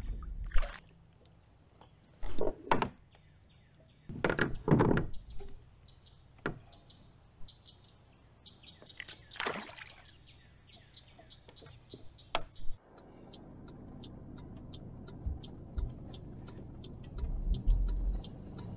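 A few scattered knocks and handling noises from fishing gear in a kayak, with quiet between them. Then the steady low hum of a pickup truck cab, with faint light ticking about two to three times a second and a couple of low thumps.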